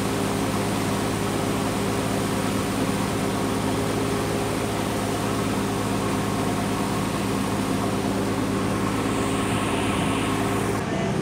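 A fishing boat's engine running steadily, a low even hum under a constant hiss.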